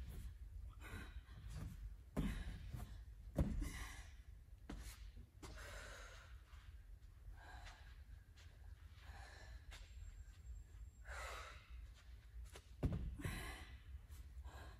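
Hard breathing, with sighs and gasps, from an athlete tiring during wall handstand push-ups. A few sharp thumps of body and feet against the wall and floor, the loudest near the end as she kicks back up into the handstand.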